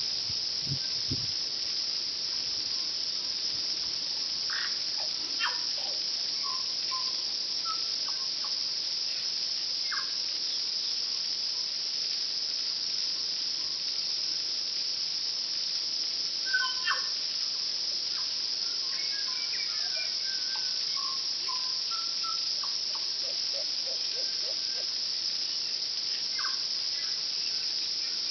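Steady high-pitched insect drone, with a tui's scattered song notes over it: short whistles, clicks and warbled phrases, the loudest about two-thirds of the way in, and a quick run of lower clicks near the end.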